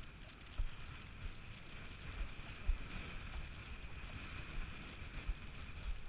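Windsurf board sailing over choppy water: a faint, muffled rush of wind and water, picked up by a small sealed action camera on the boom, with a few low knocks as the board hits the chop.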